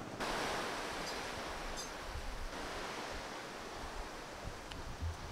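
Steady outdoor rushing noise with low buffets of wind on the microphone, starting abruptly just after the start.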